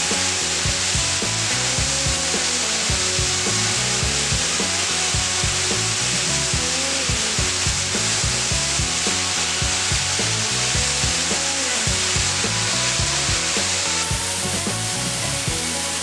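Steady rush of water pouring over a concrete weir, with frequent short knocks and crackles on top.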